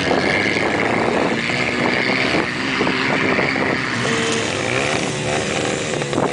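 Four-wheel-drive SUV engine running steadily while the vehicle drives over desert sand, with pitch shifting a little as the throttle changes.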